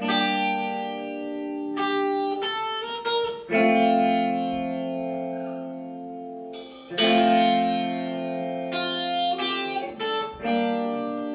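Electric guitar playing the intro of a slow blues song alone: a handful of chords struck and left to ring and fade, some held for three seconds or more, with no drums yet.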